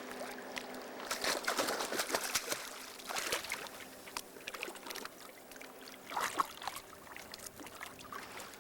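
Water splashing and sloshing in irregular bursts, busiest in the first few seconds and again about six seconds in.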